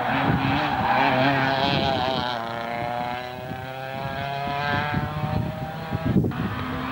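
Hill-climb race car engine revving hard through a bend, its note sliding down in pitch about two and a half seconds in as the car passes and lifts off, then climbing again as it accelerates away.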